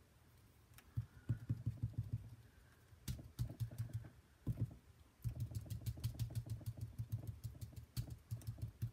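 A large foam ink dauber tapped quickly up and down on cardstock, in several runs of soft, rapid taps with short pauses between.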